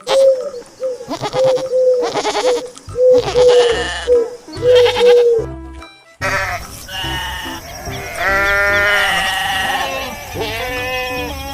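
Goats bleating repeatedly, with music playing alongside; the sound breaks off abruptly about halfway through before more long, wavering bleats.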